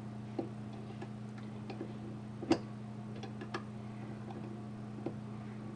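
Scattered small metal clicks and taps of pliers working fasteners on a battery charger's circuit board, with one sharper click about two and a half seconds in, over a steady low electrical hum.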